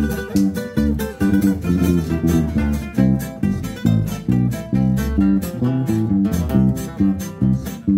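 Instrumental break in a song: plucked guitars over a bass line, keeping a steady, even rhythm with no singing.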